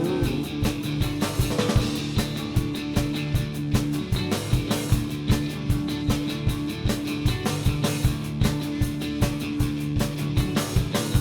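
Rock band playing an instrumental passage without vocals: a steady drum-kit beat over held low notes.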